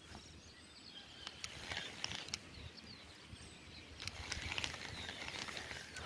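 Faint outdoor ambience: a low even noise with scattered small ticks, which become more frequent and a little louder about two-thirds of the way through, and a few faint bird chirps.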